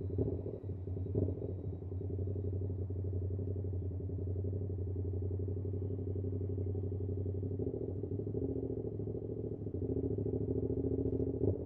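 A 2022 Yamaha R7's 689 cc parallel-twin engine running through an SC-Project CR-T exhaust at a steady pitch while riding, picked up by a recorder inside the rider's backpack. A few sharp taps come from the backpack straps slapping the bag.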